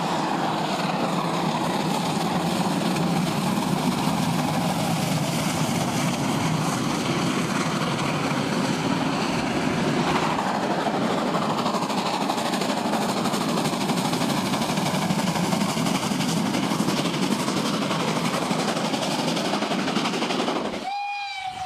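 Steam-hauled passenger train passing close by, a steady loud rumble and rattle of wheels on the rails. Just before the end this gives way to a steam whistle starting up.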